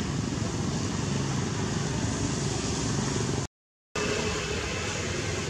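Steady outdoor background rumble and hiss. It drops out completely for under half a second about three and a half seconds in, then goes on.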